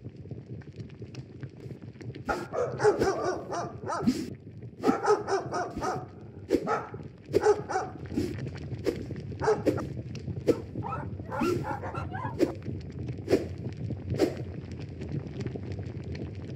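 A dog barking over and over, about once a second and sometimes twice in quick succession, starting about two seconds in, over a steady low background hiss.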